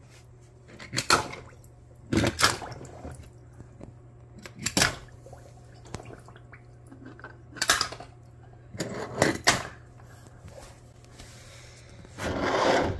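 Die-cast toy cars dropped one after another into a tub of water, each landing with a short splash, with several seconds between most of them. Near the end comes a longer scraping noise of toy cars pushed across a plastic tabletop.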